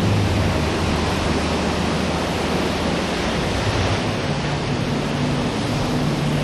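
Heavy surf: a loud, steady wash of breaking waves, with a faint low hum underneath.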